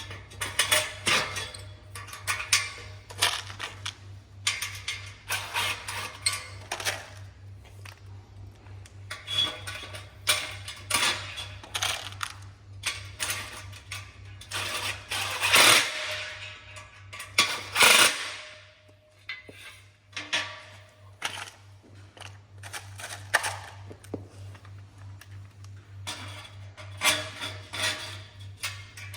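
Irregular clicking, clattering and knocking of greenhouse frame parts and fittings being handled and fastened during assembly, with two louder, longer bursts around the middle, over a steady low hum.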